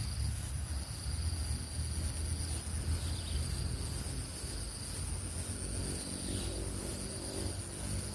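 Insects trilling in a steady high-pitched chorus, with a fainter second trill lower down, over a constant low rumble.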